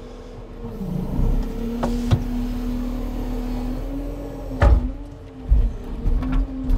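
Timber truck's diesel engine rising in speed about a second in, then running steadily at raised revs. Several sharp knocks and clunks come through over it, the loudest a little past halfway.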